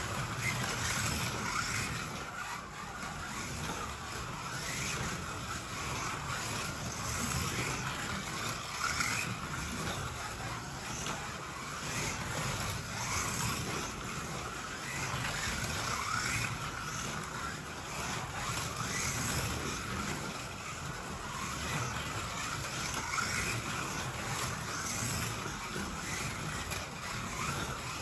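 Two 1/32 RevoSlot slot cars, a Toyota Supra and a Ferrari F40, lapping a Ninco plastic track: their small electric motors whine, rising and falling in pitch as they speed up on the straights and slow for the corners, over a steady rumble of the cars running in the slot.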